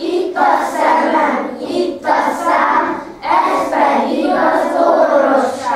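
A class of young children singing a song together in unison, in three phrases with short breaks between them.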